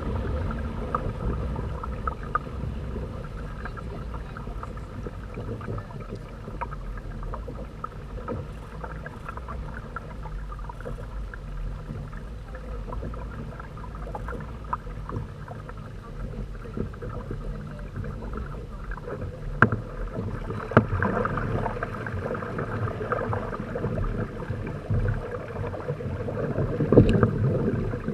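Water rushing and splashing along the hulls of a Hobie Tandem Island trimaran under sail, with wind buffeting the microphone as a low rumble. A few sharp knocks come about two-thirds of the way through, and the splashing grows louder in the last third.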